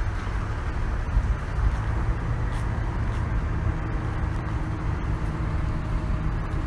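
Steady low outdoor rumble of road traffic.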